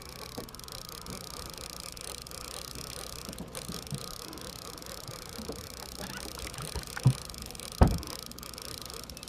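Fishing boat's engine running with a steady low drone, and two sharp thumps about seven and eight seconds in, the second the louder.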